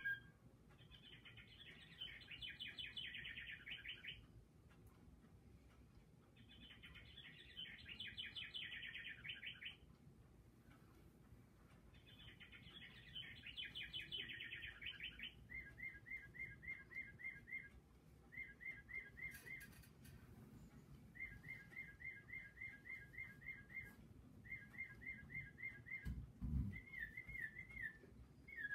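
A bird singing: three long, rapid trilled phrases of about three seconds each, followed by a run of shorter chirping trills repeated about once a second.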